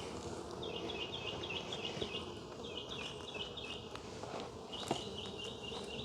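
Honeybees buzzing around an opened hive in a steady hum. A bird sings three runs of rapid, repeated high chirps over it, and there are a few faint clicks.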